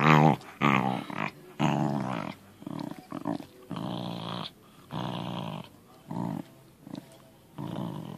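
Corgi growling in play: a run of short throaty growls, about one a second, loudest at the start and fainter later on.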